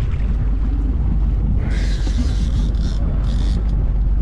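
Fishing boat's engine running steadily with wind buffeting the microphone, making a continuous low rumble. Bursts of hiss come about a second and a half in and again near three and a quarter seconds.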